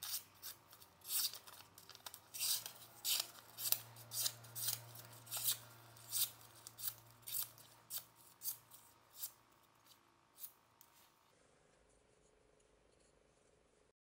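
Freshly sharpened and polished knife blade slicing through a sheet of paper held in the hand, a sharpness test: short crisp slices over and over, about one and a half a second, stopping about eleven seconds in.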